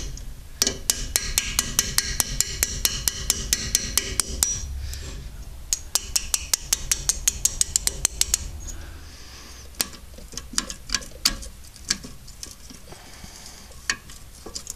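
Quick, even hammer taps on a steel punch driving out the pad retaining pins of a VW Bus front brake caliper, each strike ringing metallically. The taps come in two runs of about six a second, then a few scattered clinks near the end.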